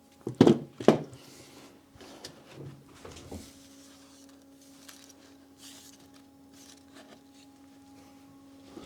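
Two sharp knocks about half a second apart, a few softer knocks and handling sounds, then a faint steady electrical hum.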